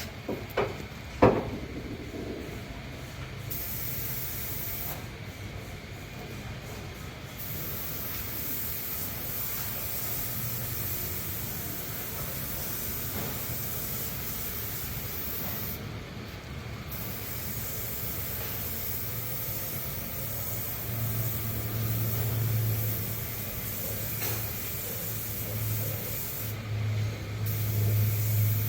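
Steady hiss of compressed air spraying, with two sharp knocks in the first second and a half and a low hum that grows stronger in the second half.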